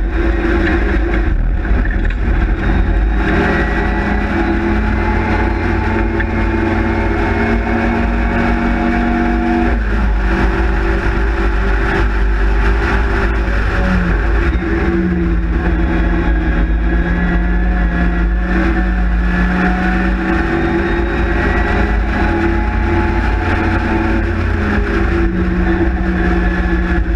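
Four-cylinder engine of an Austin-Healey Sprite/MG Midget race car pulling hard at high revs, heard from the open cockpit, its pitch holding and climbing then dropping sharply several times, about ten and fourteen seconds in and again near the end, as the driver changes gear and lifts for corners. A steady rush of wind and road noise runs underneath.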